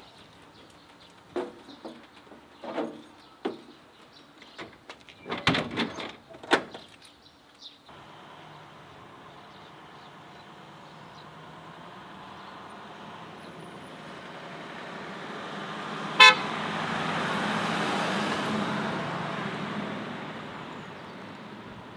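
A few scattered knocks and clanks, then a car and a box truck approaching and driving past, their road noise swelling to a peak and fading. A single short horn toot sounds about two-thirds of the way in.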